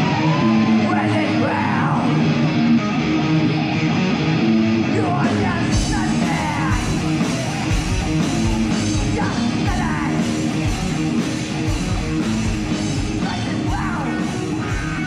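Live rock band playing: distorted electric guitars, bass guitar and drums, with a singer yelling and singing over them. The low end and cymbals fill out about five and a half seconds in.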